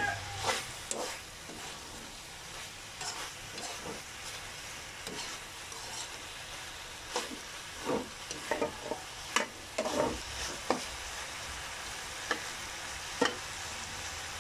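Meat chunks for adobo sa asin sizzling in a nonstick frying pan over medium heat while a metal spoon stirs them. The spoon's scrapes and taps against the pan come through now and then over the steady hiss.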